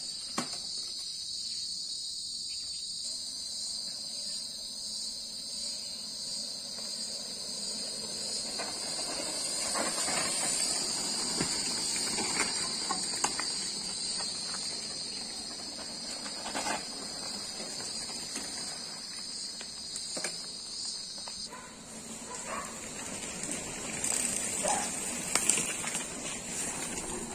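Steady high-pitched chorus of insects in two high bands, the lower of which drops out about 21 seconds in. Scattered clicks and rattles come from mountain bikes riding past on a dirt trail.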